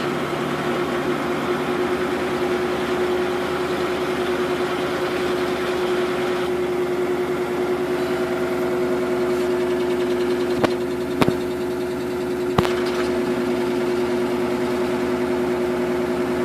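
Samsung washing machine spinning a load of duvets at a steady top speed on its blanket cycle (capped at 800 RPM), a constant hum with a steady whine, the drum running smoothly with little vibration. A few sharp clicks come about two thirds of the way through.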